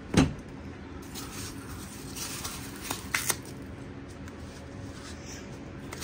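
Small objects being handled and set down on a desk: a sharp knock just after the start, light rustling, then a quick run of three clicks about three seconds in and one more at the end.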